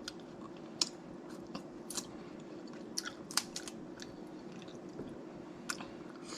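A person chewing snow crab legs close to the microphone, with irregular short wet clicks and smacks. A faint steady hum sits underneath.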